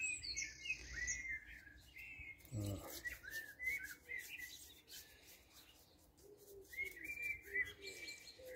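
Garden birds chirping and twittering in quick repeated notes, with a brief low sound about a third of the way in and softer, lower calls in the last couple of seconds.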